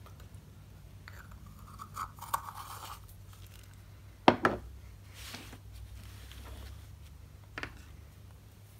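Handling of craft materials on a tabletop: light rustling and scraping of paper and card, with a sharp knock about four seconds in as a small object is picked up or set down, and a fainter knock near the end.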